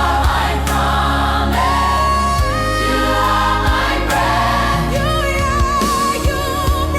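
AI-generated gospel worship music: held sung notes with vibrato and choir backing over steady bass notes and regular drum hits.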